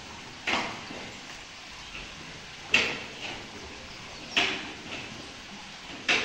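A long-handled tool scraping wet manure along a barn floor, four short strokes about a second and a half apart.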